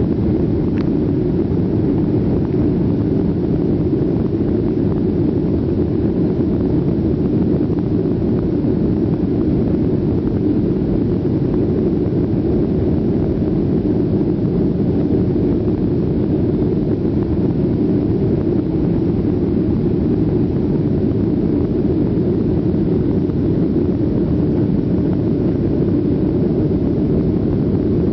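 Steady, deep roar inside the cabin of a climbing Boeing 737: the twin turbofan engines at climb power and the rush of air past the fuselage, unchanging throughout.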